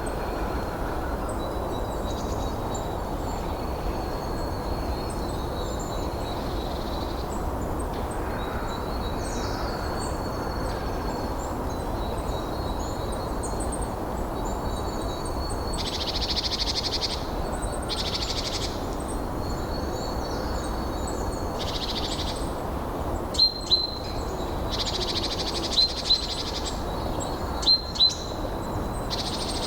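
Songbirds chirping and singing over a steady rush of wind. In the last few seconds a nearer bird gives loud, sharp chirps in pairs.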